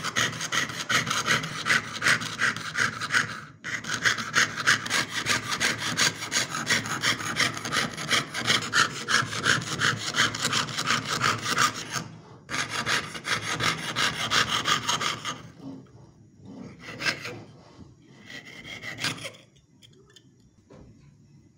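Jeweler's saw cutting through a thin metal sheet, piercing out the background of an engraved pendant: rapid back-and-forth strokes, about four a second. There are brief pauses about 3.5 and 12 seconds in, and the strokes thin out to a few scattered ones and stop near the end.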